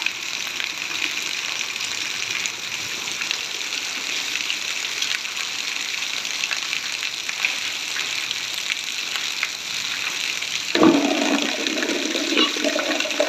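Heavy rain pouring steadily onto concrete and puddles, an even hiss. Near the end, children's voices break in over the rain.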